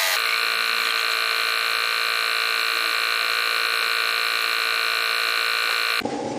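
A steady machine hum, a whine made of several even, unchanging tones, which cuts off abruptly about six seconds in.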